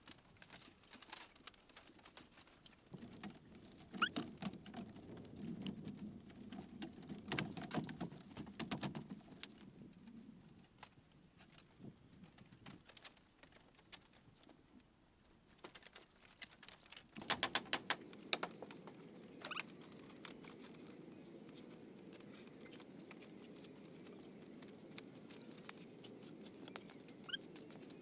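Irregular light taps, clicks and scraping of woven bamboo panels and poles being handled and fitted, with a quick run of sharper clicks about two-thirds through.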